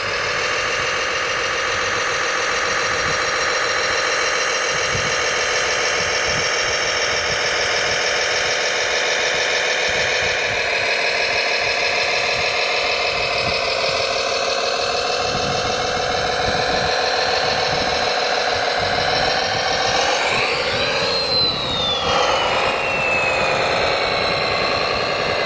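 Motors and gearing of radio-controlled construction machines running steadily, a dense mechanical whine. About twenty seconds in the pitch swings up and back down, and a thin high whine then glides slowly downward.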